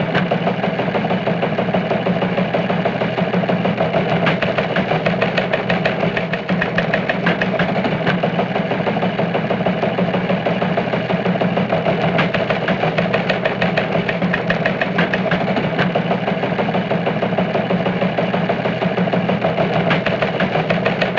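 An engine running steadily at idle, a dense, even rattle of rapid pulses that stops abruptly at the very end.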